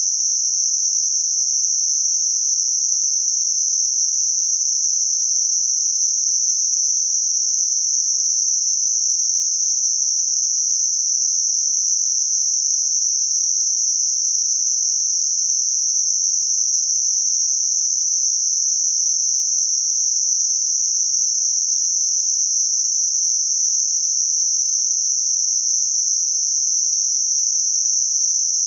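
Synthetic 6 kHz Gaussian narrow-band noise: a steady, high-pitched hiss, bell-curve filtered so that it rolls off on either side. It is a masking sound for high-frequency tinnitus.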